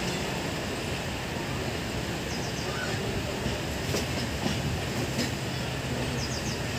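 Passenger train of ICF coaches rolling past, a steady rumble of wheels on rails with a few sharp clicks over rail joints.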